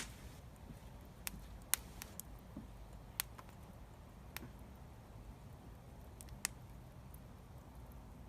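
Wood fire crackling: scattered sharp pops and snaps at uneven intervals over a low steady background.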